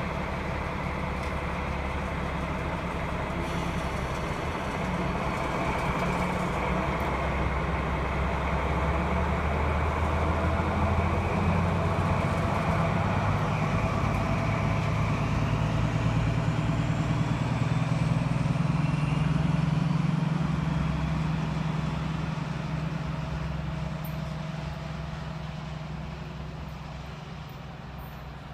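DB class 218 diesel-hydraulic locomotive pulling away under power: its diesel engine runs with a deep steady note that grows louder as it works up to speed, with a faint rising whine over it, then fades as it draws off into the distance.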